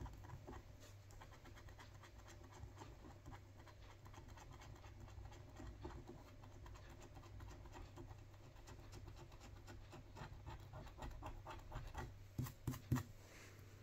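Scratch-card coating being scraped off in a rapid run of quick, faint scratching strokes, with a few louder strokes near the end.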